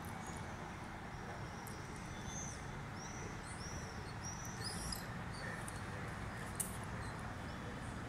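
Swifts flying past and giving a series of short, high-pitched calls, mostly between about two and five seconds in, over a steady urban background hum. A single sharp click comes near the end.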